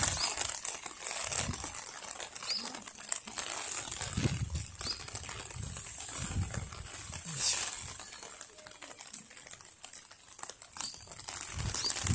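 Soft rustling and scattered dull thumps, with a few faint, short high chirps.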